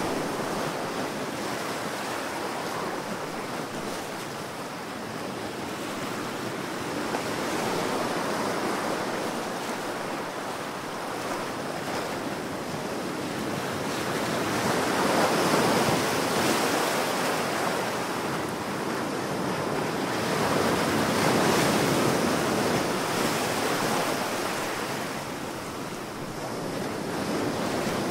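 Powerful ocean waves breaking in a continuous rush of surf that swells and eases every six or seven seconds.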